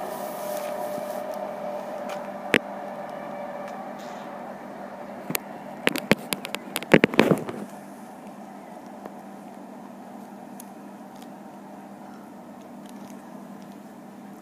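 Train running away into the distance, its noise fading over the first few seconds. About six to seven seconds in there is a quick cluster of sharp clicks.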